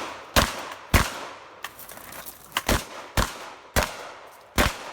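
Six shots from a Remington 870 pump-action shotgun, fired in quick succession, with fainter clicks between some of them. The first two come about half a second apart, then there is a gap of over a second and a half, then four more follow about half a second apart.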